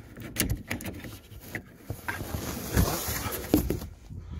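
Handling noise as the small backup battery is pulled out of a BMW telematics unit's battery compartment: scattered clicks and knocks, with a rustling hiss from about two seconds in.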